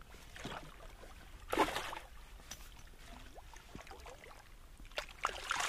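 Lake water sloshing and splashing as a landing net holding a carp is worked in the margin by hand, in several short bursts, the loudest a little after one and a half seconds in and more near the end.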